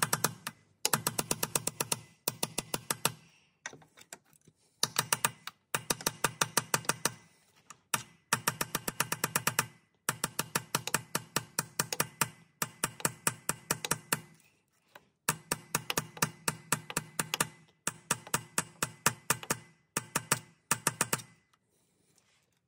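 A small hammer tapping on a metal drift in quick runs of light strikes, many a second, each run lasting a second or two with short pauses between. It is driving a new selector rod oil seal into the back of a classic Mini's gearbox.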